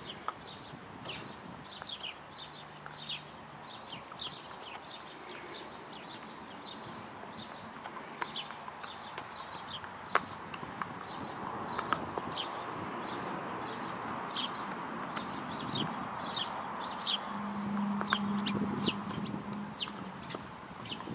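A small bird chirping over and over, short falling chirps about two a second, with a few sharp clicks and a soft hiss that swells from about halfway through.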